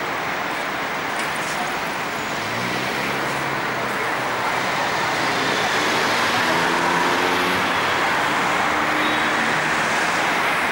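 City street traffic: a steady rush of passing cars. A heavier vehicle's low engine note comes in a few seconds in, and the sound grows a little louder about halfway.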